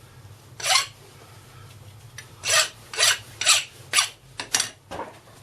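Short scraping strokes, about seven, irregularly spaced and mostly in the second half, as metal chips are cleared off a freshly machined workpiece, over a low steady hum.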